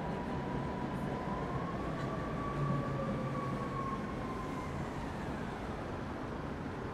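Steady low rumble with a faint, thin whine that slowly rises and falls around the middle.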